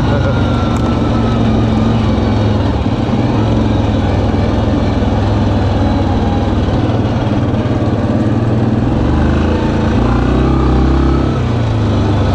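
2019 Yamaha Kodiak 700 ATV's single-cylinder four-stroke engine running steadily under way at trail speed, heard from the rider's seat. Its note shifts briefly about nine to eleven seconds in.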